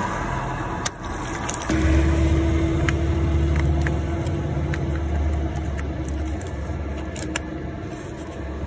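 Small clicks and rattles of hands fitting the plug connector onto a new aftermarket coolant temperature sensor, a plug that is awkward to push on. Under them, a steady low mechanical hum with a faint whining tone starts about two seconds in.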